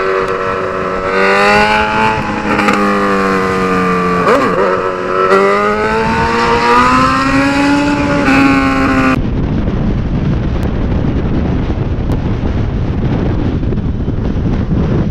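Motorcycle engine accelerating hard under the rider, its pitch climbing, dropping at a gear change about four seconds in, then climbing again. About nine seconds in it cuts to a steady rush of wind on the helmet microphone at highway speed.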